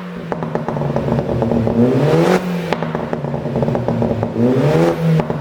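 BMW G30 520i's turbocharged four-cylinder engine revved in two blips, rising and falling. Crackles and pops come from the exhaust as the revs drop, the effect of a pop-and-crackle tune.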